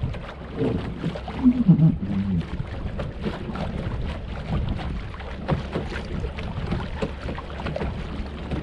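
Small waves lapping and slapping against the hull of a small sailboat under way, with wind buffeting the microphone. A brief low, voice-like sound comes about one and a half seconds in.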